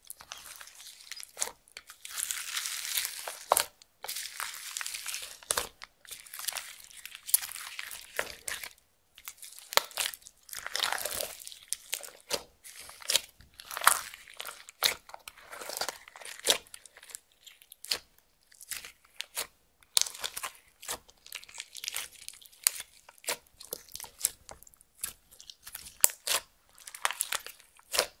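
Clear slime being kneaded and stretched by hand, making irregular sticky crackles, clicks and small pops.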